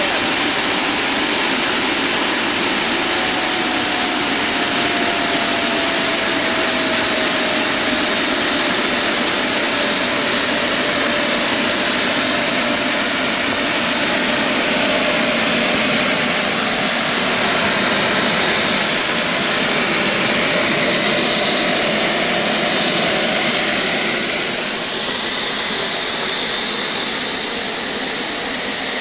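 Home-made kerosene-fuelled gas turbine with a centrifugal compressor running loud: a steady jet roar with high turbine whines that fall gently in pitch over the first several seconds, then hold level.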